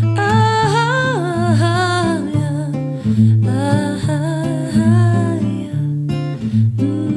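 Song with acoustic guitar and a female voice singing a wavering melody without clear words, in two phrases with a short gap between them.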